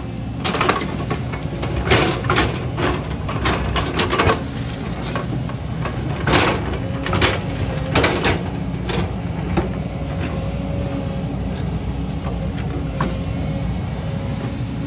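Excavator's diesel engine running steadily under a low rumble, with a series of sharp knocks and scrapes through the first half. About nine seconds in, a steady whine joins it.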